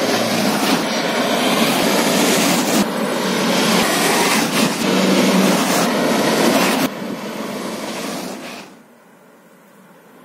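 TGV high-speed trains passing at speed: a loud, steady rushing noise, broken off abruptly several times. It drops away about nine seconds in.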